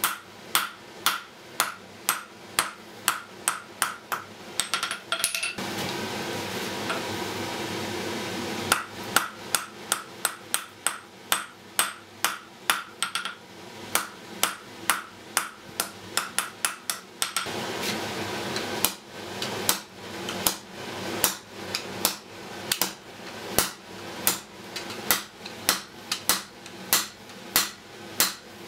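Blacksmith's hand hammer striking a red-hot iron bar on an anvil while drawing out a tapered point, about two to three blows a second, each with a short ringing ping. Twice the blows stop for a few seconds of steady rushing noise.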